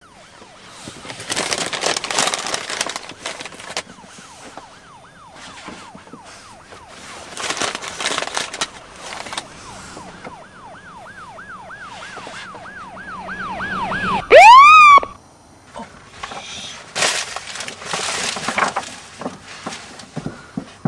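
Police car siren yelping in quick rising-and-falling cycles, about three or four a second, growing louder, then a loud rising wail about fourteen seconds in that cuts off a second later. Bursts of rushing noise come and go around it.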